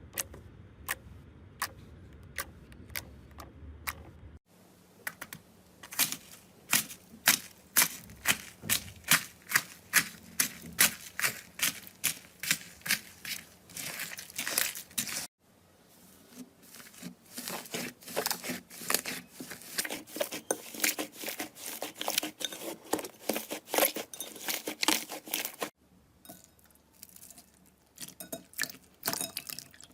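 Slime being pressed and squeezed by hand, giving a run of sharp crackling pops about two a second. The sound changes abruptly three times as one slime gives way to the next.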